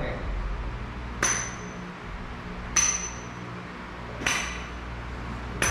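Metal dumbbells clinking together overhead at the top of each shoulder-press rep: four sharp clinks about a second and a half apart, each with a brief high ring.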